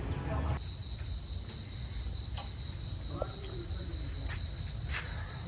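A cricket trilling steadily in a high, rapidly pulsing tone, starting about half a second in, over a low background rumble with a few faint clicks.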